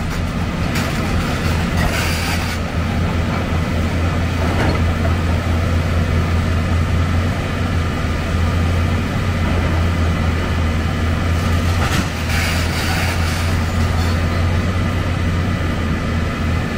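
Heavy demolition excavator's diesel engine running steadily under load, with a few short knocks and clanks over it.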